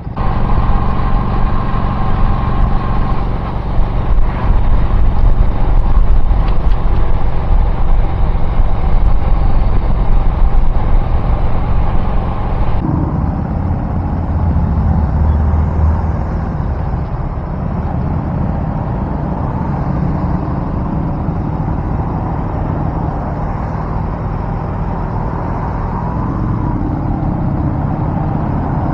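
Car driving on the road, heard from inside the cabin: a steady rumble of engine and tyre noise. About thirteen seconds in, the sound changes abruptly from a louder, brighter noise to a quieter, lower rumble.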